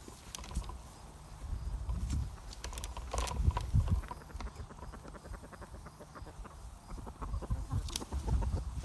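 Digging and handling in garden soil while sweet potatoes are unearthed: scattered soft thuds and many small clicks and knocks.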